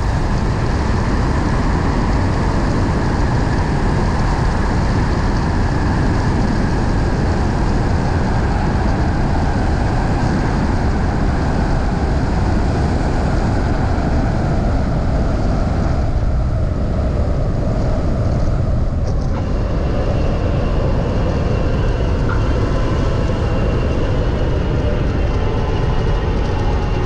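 Steady wind rush and engine noise of a Cessna 140 landing, heard on a camera mounted outside on the wing strut, from final approach to the landing roll on the runway. A faint steady whine comes in during the roll-out.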